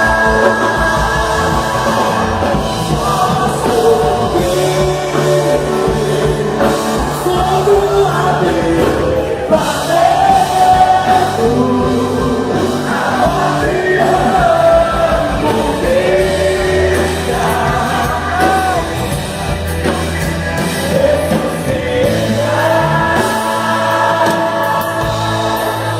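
Live gospel band music with singing voices carrying the melody over a steady bass.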